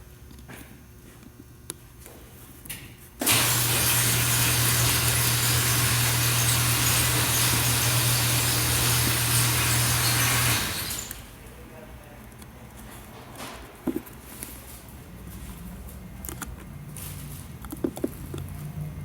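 A small electric blower motor switches on about three seconds in and runs steadily for about seven seconds, a rush of air over a low motor hum, then winds down. Light clicks and taps come before and after it.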